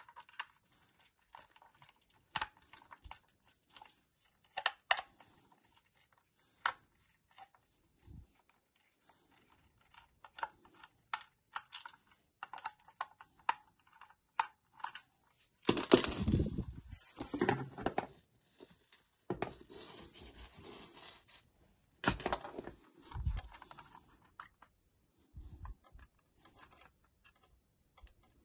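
Small screwdriver working the screws out of a plastic TS-836 plug-in watt meter case: scattered light clicks and scrapes. Past the middle come longer, louder scraping and cracking as the plastic case halves are pried apart by hand.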